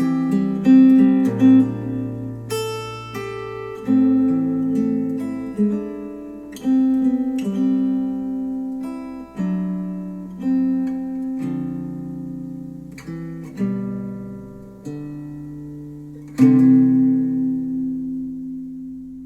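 Acoustic guitar music: single chords struck every second or two and left to ring, the last one fading out near the end. It is played back through Focal Chora 806 bookshelf speakers driven by a NAD C 328 integrated amplifier.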